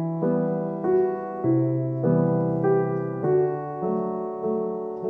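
Background piano music: a gentle melody with a new note or chord struck a little under twice a second, each fading before the next.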